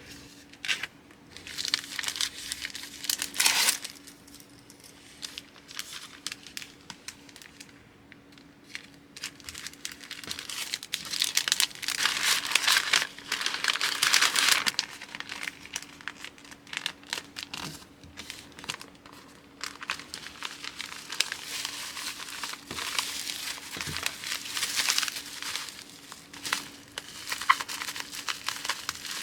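Packaging material crinkling and rustling as orders are packed by hand, in irregular bursts with scattered light clicks and taps.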